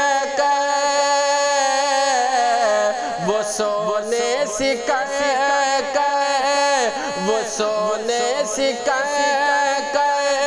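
A devotional Urdu kalam (naat) sung by a solo voice, drawing out long held notes that waver with vibrato and slide between pitches.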